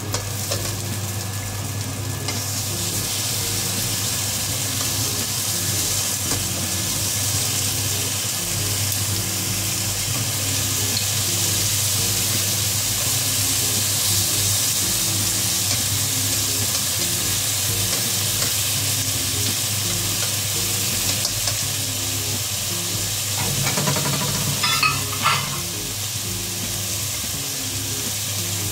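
Sliced beef, onion, chili and garlic sizzling steadily in oil in a nonstick wok, the sizzle growing stronger about two seconds in. Near the end comes a brief clatter as chopsticks turn the food in the pan.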